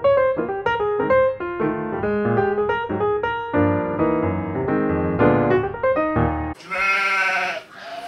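Solo piano music, a run of quick single notes and chords. About six and a half seconds in it cuts off abruptly, and a loud, wavering, bleat-like cry takes over for about a second, starting again near the end.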